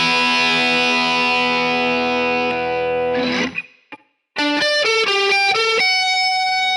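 Epiphone Flying V electric guitar played through a Marshall SC20H amp on a crunch (light overdrive) tone. A held chord rings for about three and a half seconds and is cut off. After a short pause comes a quick run of single notes, ending on a held note that begins sliding down in pitch at the very end.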